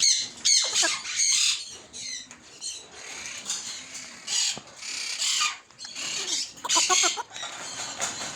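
Pet parrots squawking and chattering: a run of short, high-pitched calls with brief pauses between them.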